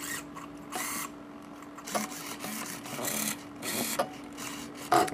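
Hobby RC servos whirring in several short bursts as they swing a cardboard animatronic's Easter-egg eyes and ABS linkages under radio control, over a faint steady hum.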